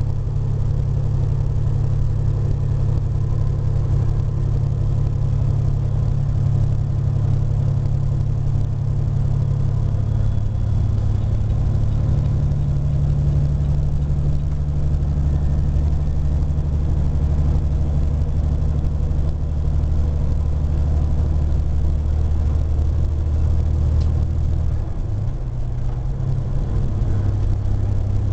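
Steady low drone of a vehicle's engine and road noise heard inside the cab while cruising at highway speed. The engine note shifts a little about two-thirds of the way in and again near the end.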